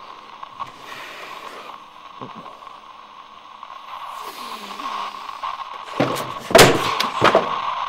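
Radio static: a steady hiss with a thin constant tone, then a cluster of sharp bangs or cracks about six seconds in.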